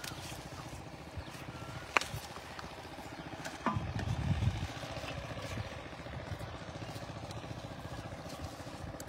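A small engine running steadily, a low, evenly pulsing drone, with a sharp click about two seconds in and a short burst of low rumbling noise around four seconds in.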